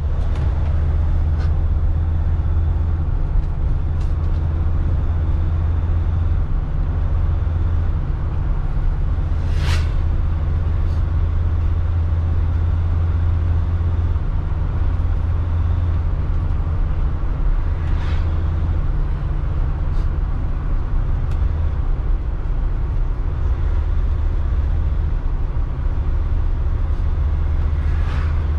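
A motorhome on the move: a steady low engine and road drone, with a few brief sharp clicks or knocks along the way.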